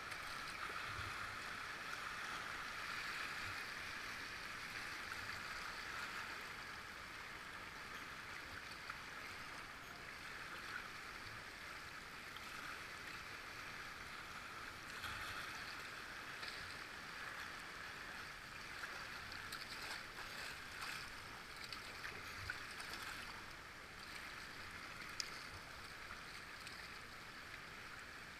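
Steady rush of river water, with a few faint knocks and splashes scattered through.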